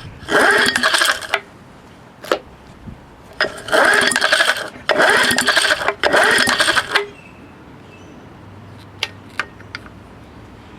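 Recoil starter rope pulled four times in quick succession, each pull cranking a small engine over for about a second without it catching, during a spark test. A few faint sharp ticks follow near the end.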